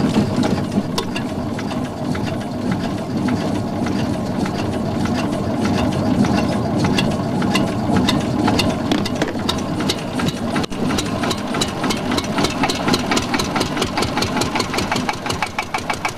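A fishing boat's motor running with a steady, rapid knocking beat.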